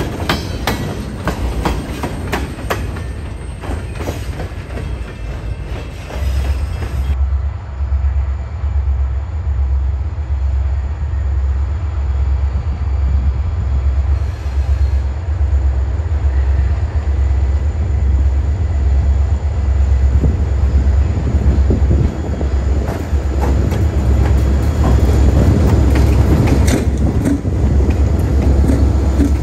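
Freight cars clattering over the rail joints as the tail of a train rolls past, ending after about seven seconds. Then a low, pulsing rumble of approaching diesel locomotives that grows louder, with wheel clicks and rail noise building as the lead units pass close by near the end.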